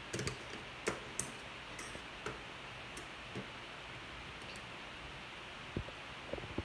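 Scattered light clicks and taps at irregular intervals over a steady faint hiss, a cluster near the start and another near the end.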